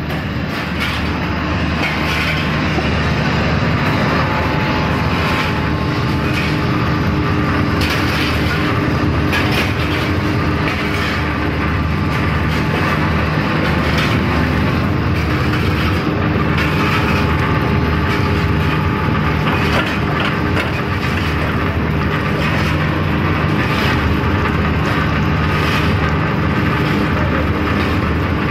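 Screw-type oil expeller running steadily: a loud, constant low machine hum with scattered sharp clicks and cracks.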